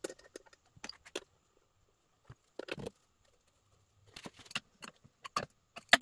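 Steel hold-down clamps, bolts and a wrench clinking and knocking as an aluminium plate is clamped to a CNC mill's fixture plate: irregular light metal clicks and taps, busier in the last two seconds.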